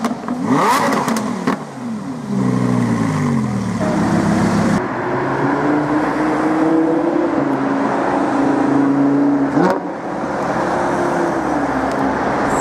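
Lamborghini Huracán's V10 revving hard with crackling pops in the first second and a half, its pitch then stepping down. It settles into a steady drone, with a sharp rev blip near ten seconds and another rise near the end.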